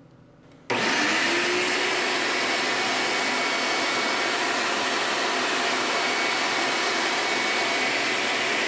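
A 6-horsepower, 16-gallon wet/dry shop-vac switched on: it starts suddenly under a second in, its motor whine rising briefly as it spins up, then runs steadily, drawing air through its 2.5-inch hose.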